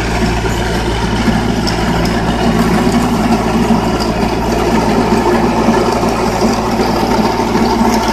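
Indo Farm 1026 orchard tractor's diesel engine running steadily at a constant speed.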